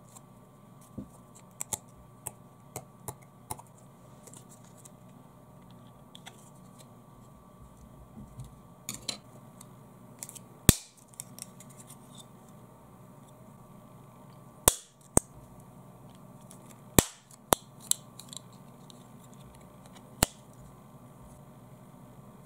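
Thin plastic letter paddles being bent and snapped by hand: small clicks and creaks in the first few seconds, then a string of sharp snaps as the plastic breaks, the loudest about ten seconds in and several more close together later on.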